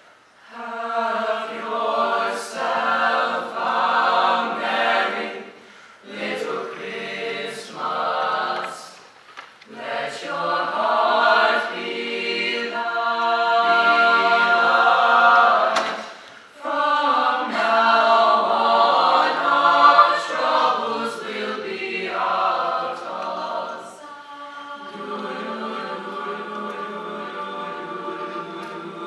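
Mixed-voice jazz choir singing a cappella in harmony, in phrases with short breaks between them; the singing turns softer about five seconds before the end.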